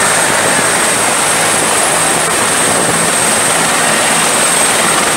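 Bell 212 helicopter's twin turboshaft engines and rotor running on the ground: a loud, steady rush with a thin, high turbine whine held over it.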